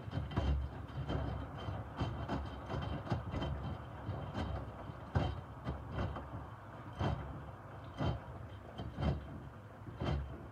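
Miele W2573 front-loading washing machine tumbling a load of microfiber cloths in its main wash: the wet cloths slosh and drop in the turning drum, about one splash or thud a second, over the steady run of the drum motor.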